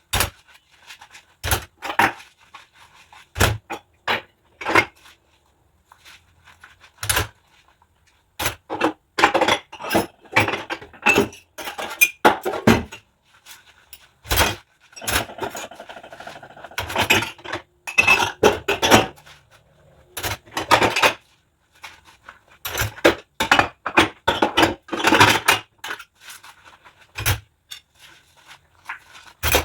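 Hand dishwashing: dishes and cutlery clinking and knocking together at irregular moments, with a few longer stretches of scrubbing noise.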